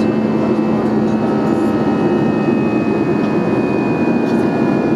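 Steady jet engine and airflow noise inside an Airbus A320 cabin in flight: a dense low hum with a few steady whining tones over it.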